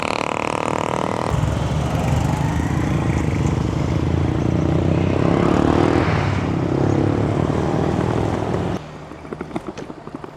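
Road traffic at close range: motor vehicle engines running, with an engine note rising and falling in the middle. Near the end it cuts off abruptly to a quieter stretch with light ticks.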